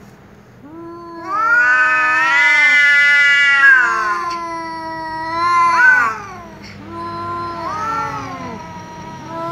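Tom cat yowling loudly in an angry caterwaul: a long, wavering howl of about five seconds that starts about a second in and rises in pitch near its end, then a shorter, lower yowl. It is an aggressive warning at another cat.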